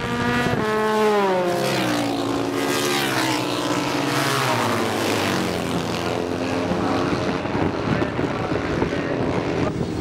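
Racing motorcycles passing at speed down the straight, their engine note sweeping down in pitch as they go by, then a lower steady engine sound as they run on down the track.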